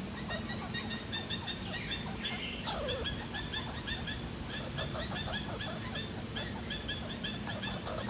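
Red squirrel calling: a steady run of short, high chirps, about three a second, kept up throughout.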